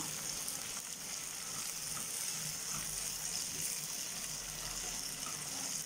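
Chopped onions, green chillies and ginger-garlic paste sizzling gently in oil in a nonstick pan, with a steady faint hiss and a few light scrapes of a wooden spatula stirring them. They are being sautéed until the raw smell of the ginger-garlic paste is gone.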